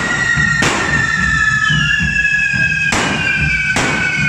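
Carretilles, handheld devils' fireworks, whistling steadily together in several overlapping high tones that slowly fall in pitch. Sharp bangs cut across them about four times.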